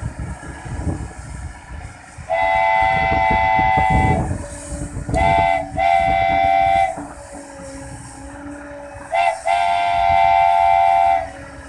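Multi-tone air horn sounding a steady chord in five blasts over a low rumble: a long blast of about two seconds, two short ones, then a brief one and another long one near the end.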